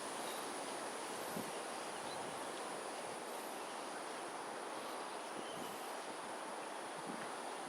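Steady outdoor wind noise with rustling foliage, under a constant high-pitched insect drone and faint high chirps about once a second.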